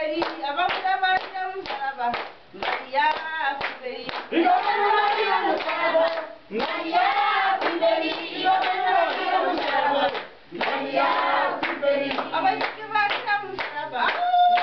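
A congregation singing a church song together in unison, with steady rhythmic hand-clapping in time with the song.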